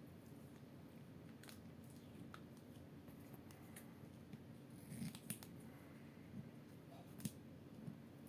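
Faint small handling clicks and snips of tape being worked onto a drone's cable, with a few sharper clicks about five and seven seconds in, over a low steady room hum.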